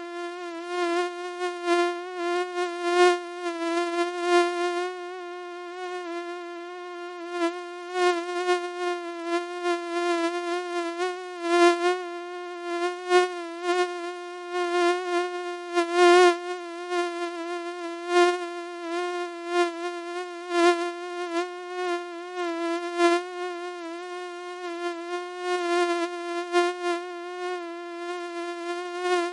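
Mosquito wing whine: a steady, thin buzz at one pitch with many overtones, wavering slightly and swelling and fading in loudness every second or so.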